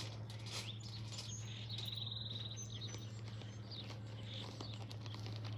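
Small birds chirping, with a rapid trill of quick repeated notes about two seconds in and short high whistles around it, over a steady low hum.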